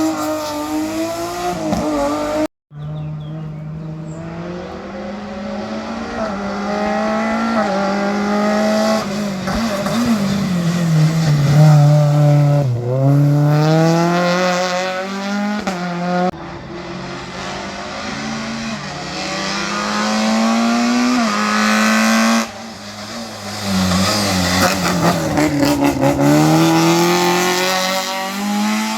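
Race car engines revving hard, the pitch climbing through the gears and dropping on braking and downshifts through the chicanes, over and over. There are a few abrupt cuts from one engine sound to another.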